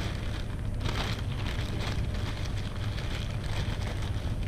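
Plastic packaging crinkling and rustling as small parts are handled, over a steady low rumble.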